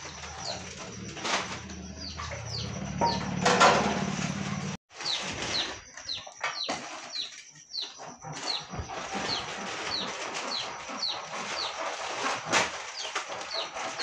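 A bird chirping over and over: short falling peeps, about two a second, with scattered rustling and clicks of handling. The sound drops out briefly a little before five seconds in.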